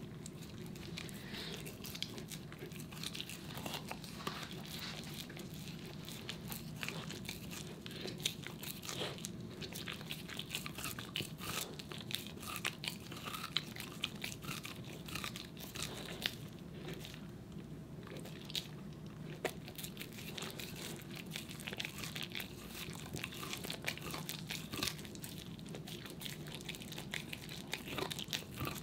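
A corgi gnawing on a raw meaty bone: irregular crunches and clicks of teeth on bone, over a low steady hum.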